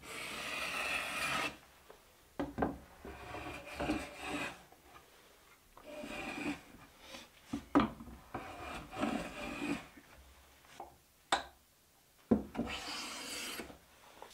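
Metal bench plane shaving long-dried oak: a series of about eight hissing strokes, each up to a second and a half long, as the blade lifts a shaving. A few sharp knocks fall between some of the strokes.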